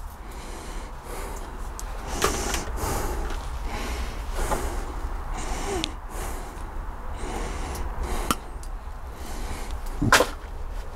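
Rustling and handling noises with a few light knocks, the sharpest near the end, as electrical leads and small parts are handled at a workbench, over a steady low hum.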